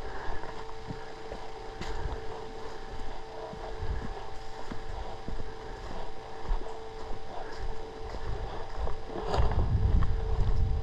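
Low rumbling and rustling noise on the microphone, with a steady faint whine and a few sharp clicks; the rumble swells loudest about nine seconds in.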